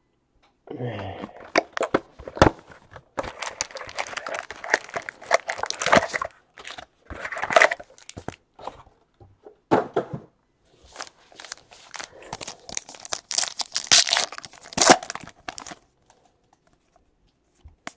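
2017 Panini Chronicles Baseball hobby box torn open and its foil card packs pulled out and ripped open: cardboard tearing and wrappers crinkling in irregular bursts with sharp crackles.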